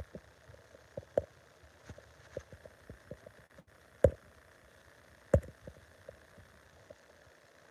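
Scattered light clicks and knocks over a quiet background, with two louder knocks about four and five and a half seconds in.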